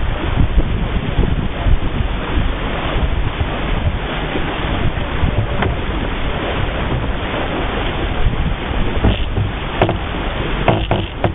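Wind buffeting the microphone over the rush of water along the hull and wake of a sailboat planing at speed. A few short knocks come near the end.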